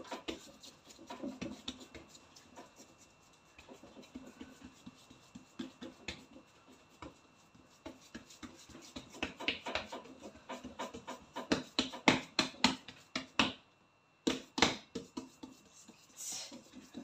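Hands working makrout dough: rubbing and scraping with irregular sharp taps and clicks, thickest and loudest about nine to thirteen seconds in.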